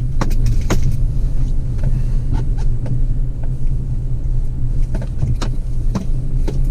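Chevrolet Colorado ZR2 pickup driving over a rough dirt track: a steady low rumble with scattered sharp knocks and rattles.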